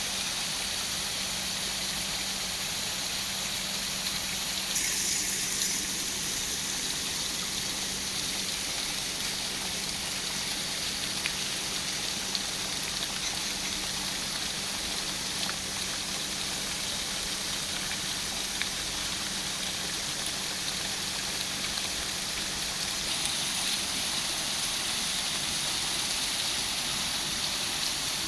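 Fountain water splashing and gushing steadily into its basin, an even rushing hiss, a little brighter twice. A faint steady low hum runs under it.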